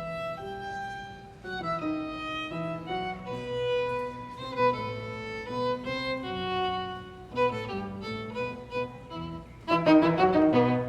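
Background music: a melody of long held notes, growing louder and busier near the end.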